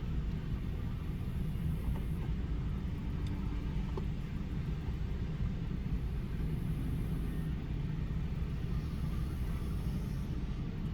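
Heavy diesel construction machinery running steadily: an excavator and dump trucks at work, heard as an even low rumble.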